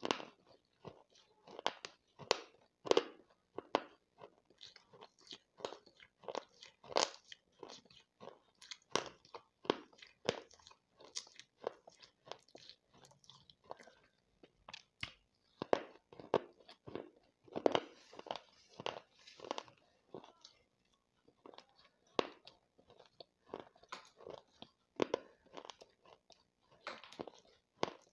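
Crunching and chewing of baked clay pot crumbles and powder in the mouth: gritty crunches, often a few a second, with short pauses about halfway and again about three quarters of the way through.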